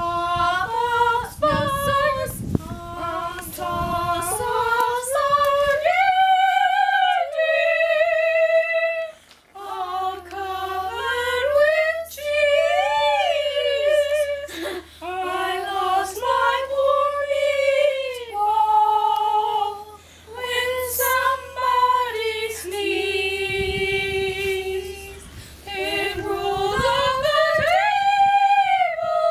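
Three children singing a cappella, unaccompanied, with long held notes and two voices in harmony for a moment about halfway through.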